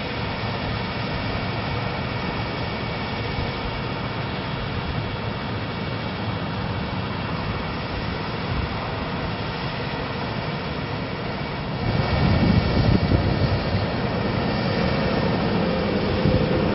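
Diesel engine of a Freightliner M2 bucket truck running steadily while its hydraulic boom is raised. The sound grows louder about twelve seconds in, and a steady hum joins near the end.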